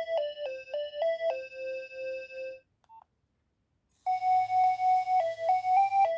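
Nokia 2300 built-in ringtones: one electronic melody of short stepped notes settles on a repeated low note and stops about two and a half seconds in. After about a second and a half of silence, the next ringtone starts with quick repeated notes on one pitch.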